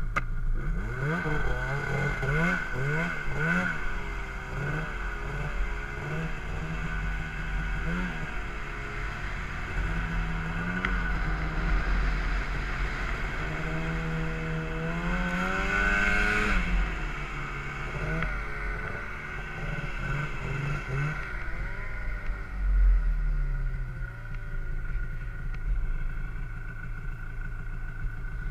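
Arctic Cat M8 snowmobile's two-stroke engine revving up and down again and again as it carves through deep powder, with a steady high whine alongside. About three-quarters of the way through, the revs drop and it settles into a low, steady run.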